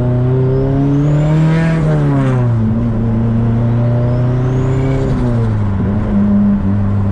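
Turbocharged Nissan S14 240SX engine heard from the cabin, pulling up in revs twice and dropping back each time as the throttle is lifted, with a faint rising whistle during each climb as the turbo builds boost.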